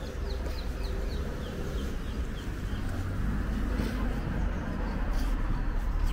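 A small bird calling in a quick series of short, falling high chirps, about three a second, that stop about three seconds in, over a steady low rumble of street traffic.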